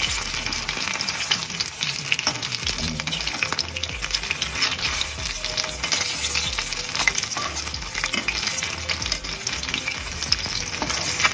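Marinated fish pieces coated in cornflour shallow-frying in hot oil in a kadai: a steady crackling sizzle with many small pops.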